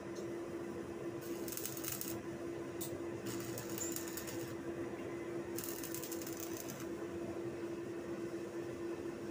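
Stick (arc) welding: the electrode arcs against steel rod in three short crackling bursts of about a second each, tack-welding the crate frame, with a brief spark between the first two. A steady hum runs underneath.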